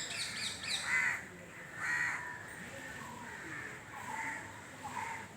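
Crows cawing: two loud caws about a second apart, then fainter calls near the end, with quick high chirps from small birds at the start.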